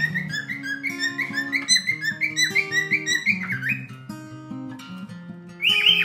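Male cockatiel whistling a rhythmic song of short rising and falling notes, the courtship song that marks a male, over acoustic guitar background music. The whistling breaks off a little past halfway and starts again near the end.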